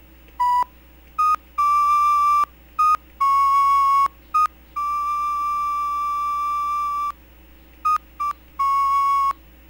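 A simple synthesized melody from a software synthesizer in the LMMS music program: about ten plain held notes played one at a time in a narrow range, each starting and stopping abruptly, one held about two seconds in the middle.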